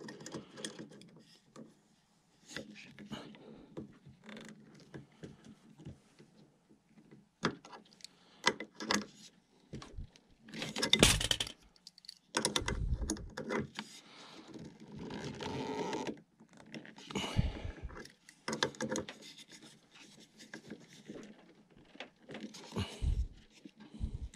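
Intermittent small metallic clicks, clinks and scrapes from a hand tool working the propeller nut tight on a model airplane's motor shaft, with the wooden propeller being handled. A few louder knocks and scrapes come near the middle.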